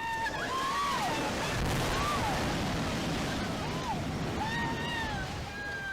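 Landslide coming down with a loud, rushing rumble of debris, loudest a couple of seconds in. Over it, people cry out several times in high-pitched, rising-and-falling voices.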